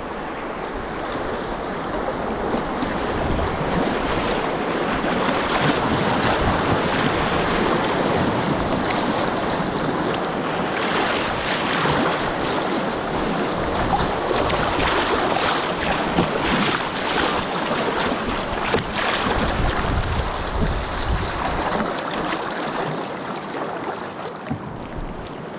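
Fast river water rushing and splashing around a canoe as it runs riffles above a rapid, with wind buffeting the microphone. The rush grows louder over the first few seconds.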